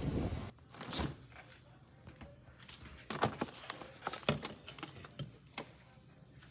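Wind noise on the microphone cuts off abruptly half a second in. After that come scattered sharp knocks and short rustles as food is taken out of a refrigerator, including a steel bowl covered in plastic wrap.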